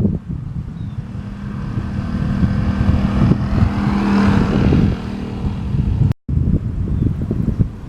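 Wind buffeting the microphone while a motor vehicle passes by, its engine hum swelling to a peak about four seconds in and then fading. The sound cuts out for an instant about six seconds in.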